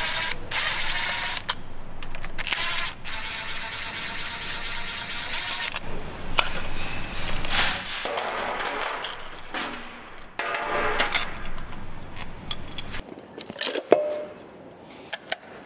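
Cordless impact driver running in long bursts on the fasteners of a diesel cylinder head, then scattered metal clicks and scrapes from hand tools on the head, with one sharp metal clank near the end as the cylinder head is lifted off the engine block.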